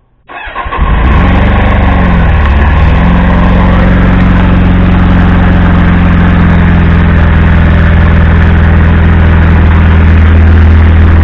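A Triumph Speed Four's 600 cc inline-four motorcycle engine starting cold after sitting for a few days. It catches with a sudden loud burst, rises in pitch and falls back within the first few seconds, then settles into a steady fast idle as it warms up.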